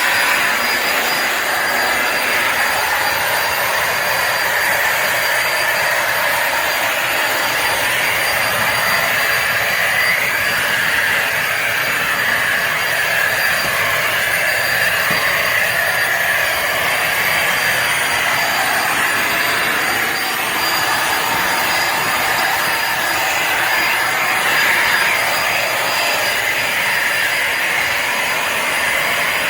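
Bissell Symphony Pet vacuum and steam mop running steadily, a constant motor noise with a faint high whine over it.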